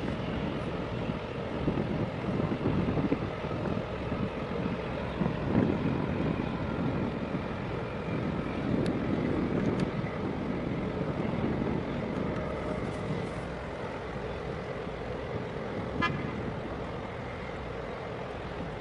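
Steady low rumble of a boat engine with wind buffeting the microphone, swelling and easing; a short run of faint ticks about sixteen seconds in.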